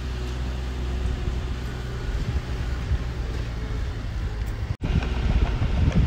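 Heavy diesel engine of earthmoving machinery running steadily with a low rumble. The sound cuts out for an instant just before five seconds in, then the rumble comes back a little louder.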